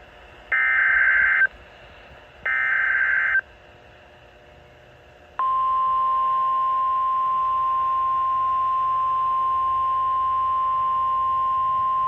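NOAA Weather Radio Emergency Alert System broadcast: two roughly one-second bursts of screeching digital SAME header data, followed about five seconds in by the steady 1050 Hz warning alarm tone, which signals a tornado warning.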